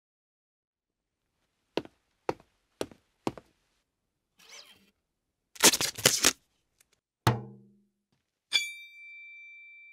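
Foley sound effects made by hand: four sharp clicks about half a second apart, a faint rustle, a loud rattling clatter, then a single thunk with a short low ringing. Near the end a click is followed by a steady high tone.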